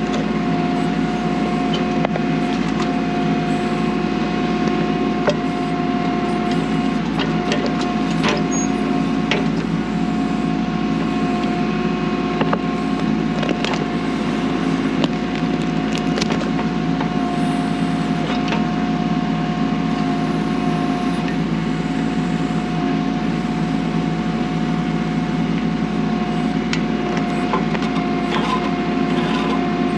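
Kubota B2650 compact tractor's diesel engine running steadily while its BH77 backhoe digs around a stump, with repeated cracking and snapping of wood as roots break.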